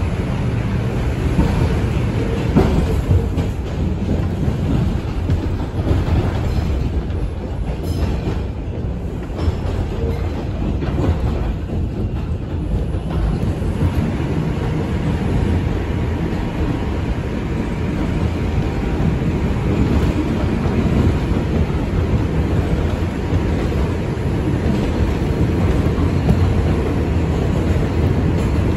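An R142 subway car running at speed on elevated track, heard from inside the car: a steady rumble of steel wheels on the rails with some clatter.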